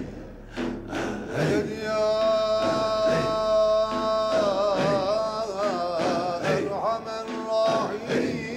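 Sufi zikr music: men chanting in rhythmic pulses, about two a second. About two seconds in, a solo male voice comes in over them on a long held note, which turns into a wavering, ornamented line and stops near the end.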